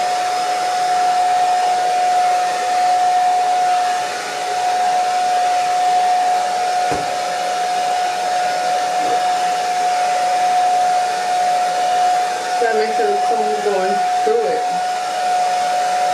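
Handheld hair dryer running steadily, a rushing blow with a constant whine, while it dries a woman's hair; it is not on its highest setting.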